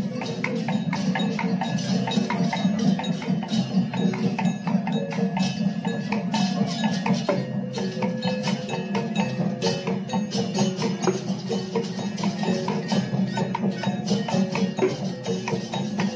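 Balinese okokan parade ensemble playing: dense, rapid clacking of wooden okokan bells and bamboo kukul slit drums, with kendang drums and cengceng cymbals, in a steady driving rhythm.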